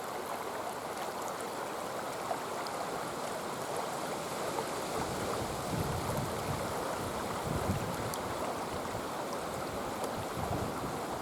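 Shallow river water running steadily over stones and exposed gravel. From about five seconds in, low rumbling comes in underneath.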